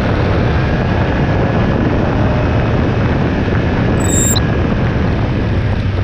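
Motorcycle riding at steady speed, with wind rushing over the bike-mounted microphone and a low engine hum beneath. A brief high-pitched chirp about four seconds in.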